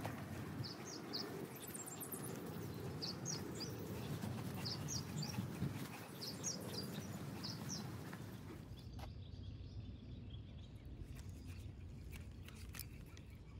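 Small birds chirping in short high notes over the crunch and rustle of footsteps on a woodland dirt trail. About nine seconds in, the sound changes suddenly to a quieter stretch with a few faint clicks.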